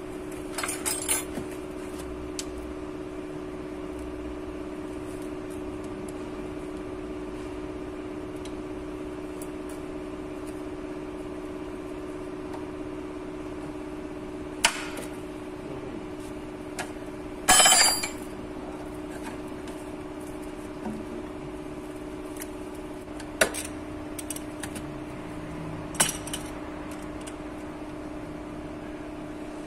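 Hand tools and bolts clinking against the metal timing-belt end of a car engine as its cover is unbolted: a few sharp clinks, the loudest a ringing metallic clatter a little past halfway. A steady hum runs underneath throughout.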